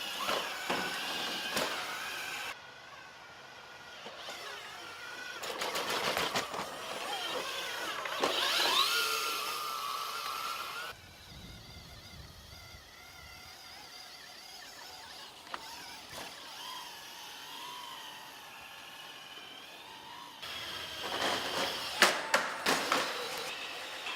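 Foley robot movement sounds made with household objects: clicks, rattles and hissy mechanical whirs, with whining tones that slide up and down in pitch like servo motors. There is a louder clattering stretch near the start, another with a rising whine in the middle, a quieter stretch with faint wavering tones, and more clicks near the end.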